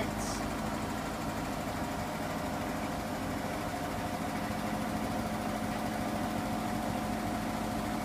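Hoover front-loading washing machine on its 9-minute Refresh programme, the drum turning with water inside and the machine giving a steady, unchanging hum.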